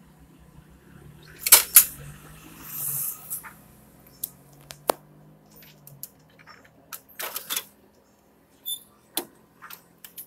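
Plastic and metal clicks and clunks from a Canon imageRUNNER photocopier's levers, knobs and slide-out unit being worked by hand to get at jammed paper, with a rustling slide about 3 s in. The loudest is a double clack about 1.5 s in, and a faint low hum fades out about 6 s in.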